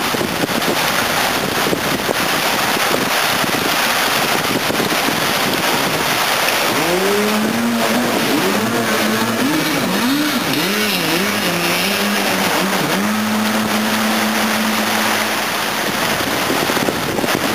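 Two-stroke 750 jet ski engine driving a small jet boat, heard over a steady rush of river water. About a third of the way in the engine comes up and its pitch rises and falls again and again as the throttle is worked. It then holds one steady high note for a couple of seconds and drops away near the end.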